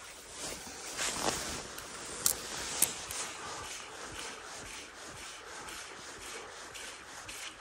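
Dry grass rustling and brushing, with two sharp clicks about two and a half seconds in.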